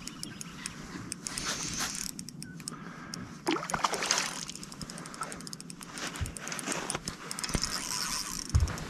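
A hooked bream splashing at the surface as it is reeled in to the boat on a spinning reel, with the reel's fine ticking under the splashes.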